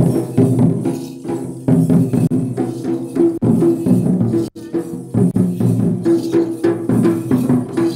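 Large wooden two-headed barrel drums (dhol) beaten with sticks in a fast, driving rhythm for the Dandami (Bison Horn) Maria dance, many quick strokes with a short break about four and a half seconds in.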